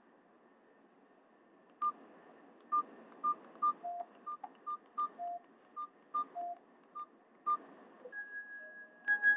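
A Nokia 6500 Slide ringtone playing through a Nokia 216 phone's speaker: a sparse pattern of short electronic beeps, mostly on one high note with a few lower ones, starting about two seconds in. Near the end a longer steady tone sounds.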